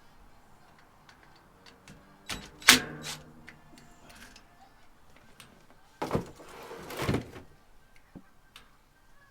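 Clicks and knocks from tools and metal parts being handled while the wiring is taken off a well pump's pressure switch, the loudest knock about three seconds in, then a scraping rustle about six to seven seconds in.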